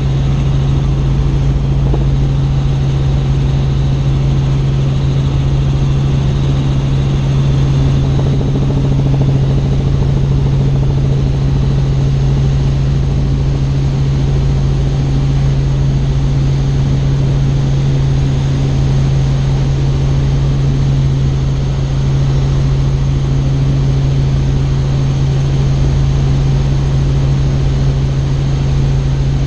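Tour helicopter in flight: a loud, steady drone with a strong low hum that holds an even pitch throughout.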